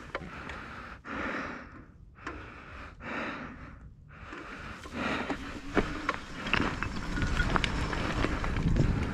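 Electric mountain bike riding a rough trail: tyres rolling over dirt and stones, with knocks and rattles from the bike and wind on the microphone. It gets louder and busier with knocks from about halfway.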